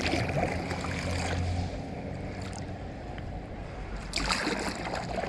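Water splashing and sloshing around a whitewater kayak as it is paddled on moving river water, with a louder splash about four seconds in.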